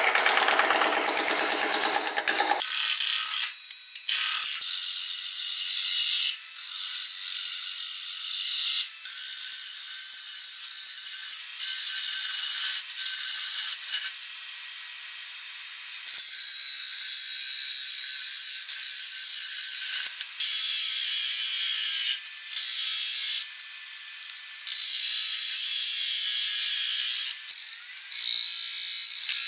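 Hand-held turning tool cutting the face of a wood blank spinning on a lathe: a loud, high-pitched scraping hiss in runs of a few seconds, breaking off briefly and starting again as the tool comes off the wood. The cut is fuller and deeper-sounding for the first couple of seconds.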